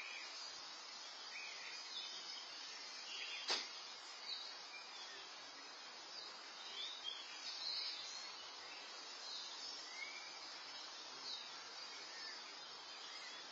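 Steady hiss from an outdoor security camera's microphone, with faint scattered chirps and a single sharp click about three and a half seconds in.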